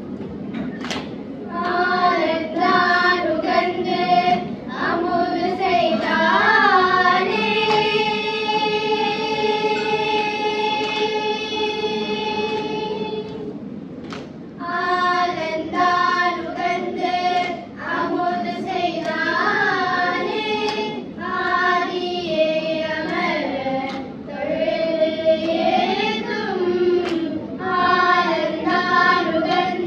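A group of children singing a Tamil devotional hymn together in unison. They hold one long note from about 7 to 13 seconds in, pause briefly, then go on singing.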